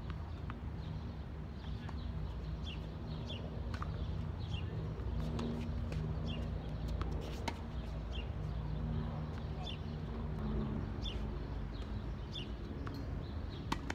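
Tennis rally on a hard court: sharp racquet hits and ball bounces every second or two, over a steady low hum from the surroundings. Short high bird chirps repeat through it.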